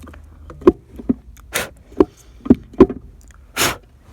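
Several sharp knocks and clicks of hard parts being handled and tapped, about five in all, with two short bursts of hiss in between.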